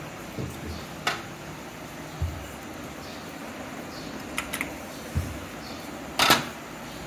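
Serving clatter: a long metal ladle knocking against a clay pot and ceramic bowls, making a few sharp clinks (a quick pair midway and the loudest near the end) with dull low thumps between them, over a steady background hum.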